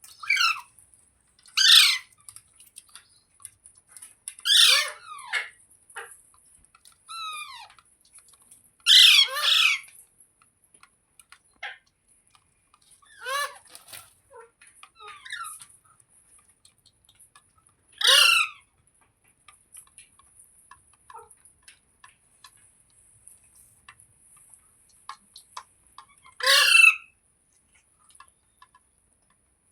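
Green parrot squawking: a loose series of short, harsh screeches, several seconds apart and unevenly spaced, with one quick double call about nine seconds in.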